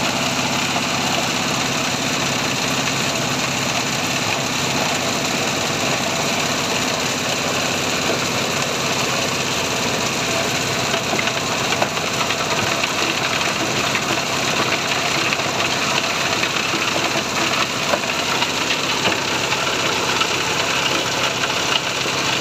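Engine-driven crusher running steadily, grinding rotten fruit and vegetables into mash, with a few short sharp knocks in the middle and later part as material is pushed through.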